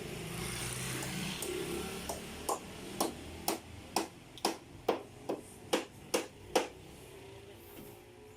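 Hammer strikes at a steady pace of about two blows a second, around ten in all. They start about two seconds in and stop a little before the end.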